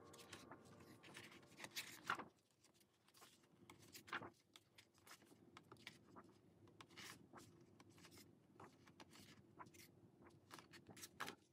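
Pages of a glossy photo book being turned by hand: faint paper rubbing and rustling, with soft flicks as pages turn over.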